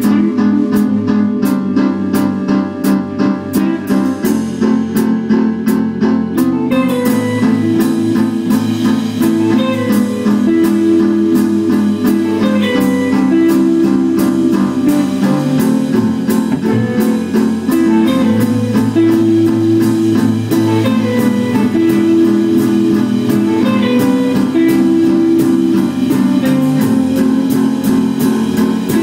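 Instrumental music with guitar over a steady beat. About seven seconds in, a fuller layer with a bass line comes in.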